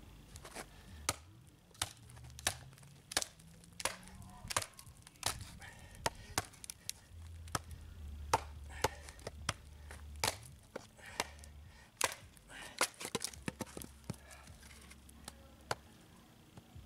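Becker BK9 Bowie knife chopping into a wooden branch to cut a baton: a long run of sharp chops, roughly every two-thirds of a second, quickening in places.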